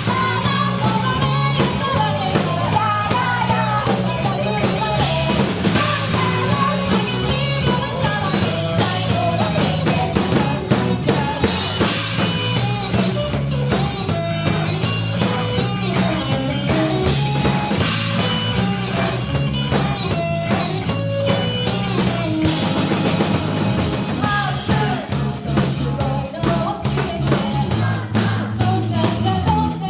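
Rock music played by a band: a full drum kit keeping a steady beat over a low bass line, with a melodic line weaving above.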